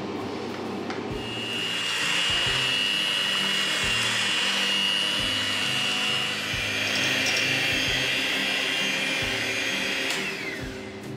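Electric hand mixer running, its beaters whisking béchamel sauce in a metal saucepan: a steady motor whine that starts about a second in and winds down near the end.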